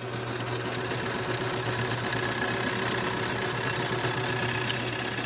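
Metal lathe running steadily, with a constant low hum and a faint high whine, spinning up for the decking cut on a chainsaw cylinder base.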